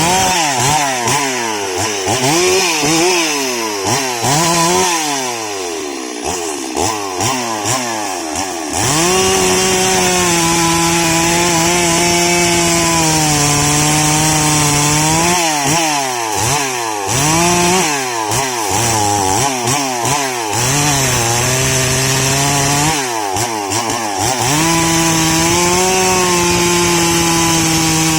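STIHL MS 382 two-stroke chainsaw sawing into an old sengon log. For the first several seconds the engine is revved up and down in quick repeated blips. About nine seconds in it is held at full throttle through long steady cuts, its pitch sagging slightly under the load, with more quick revs in the middle and near the end.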